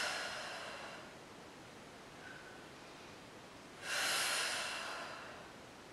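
A woman's forceful breaths out, two of them about four seconds apart, each starting sharply and fading over about a second. They are exhales timed to Pilates oblique crunches.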